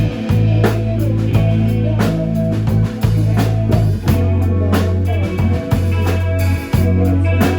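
Rock band music: electric guitar over bass and a drum kit keeping a steady beat.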